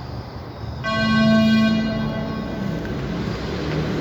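Beep-test signal beep: one low electronic tone starts about a second in, is loudest for about a second and then fades. It marks the end of a 20 m shuttle, the runner's cue to turn and run the next lap.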